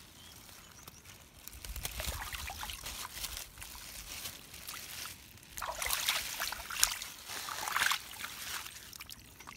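Shallow water sloshing and dribbling as hands swish raw chicken pieces to wash them, with louder splashes about six and eight seconds in.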